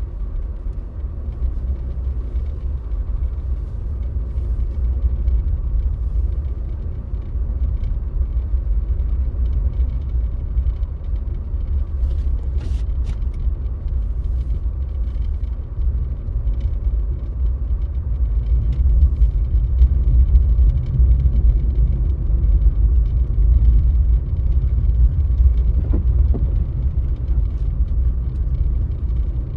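Steady low rumble of a car driving, picked up inside the cabin by a dashcam, with a few faint clicks about halfway through.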